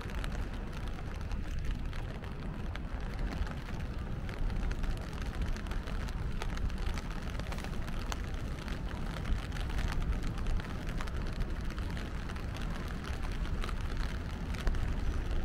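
Steady rain falling, a constant hiss dotted with many small raindrop ticks, over a steady low rumble.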